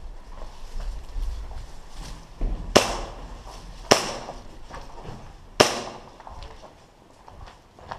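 Three sharp airsoft gun shots, the second about a second after the first and the third about a second and a half later, each with a short ringing tail. Fainter ticks and shuffles sound between them.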